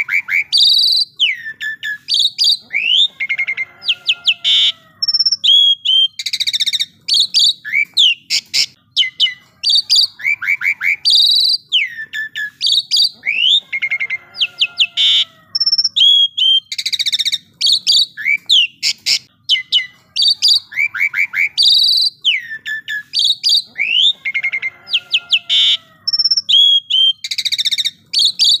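Asian pied starling in full song: a fast, varied stream of whistles, rising and falling glides and rapid chattering notes, in a sequence that comes round again every five seconds or so.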